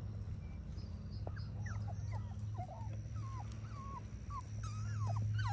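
Three-week-old Labrador puppies whimpering and squeaking: many short, high calls that bend in pitch. They start about a second in and come thicker near the end, over a steady low hum.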